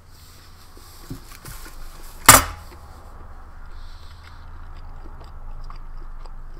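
A steel canteen cup set down hard on the table gives one sharp metallic clank about two seconds in, followed by faint handling clicks.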